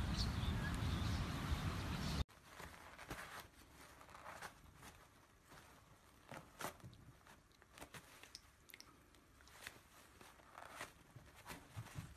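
A cat biting and tearing at a sheet of paper, heard as faint, scattered crunches and rips. It follows about two seconds of loud, steady noise that cuts off suddenly.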